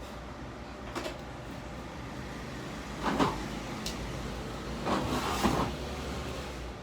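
Knocks and rattles of things being handled, loudest about 3 s in and again around 5 s, over a steady low hum, with a brief high tone just before 4 s.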